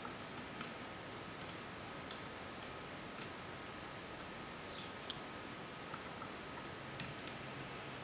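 Faint, sparse clicks of a lock pick working the ten wafers of a Fichet 484 H switch-lock cylinder, irregular and a second or more apart, the sharpest about five seconds in. Steady hiss and a thin constant high tone underneath.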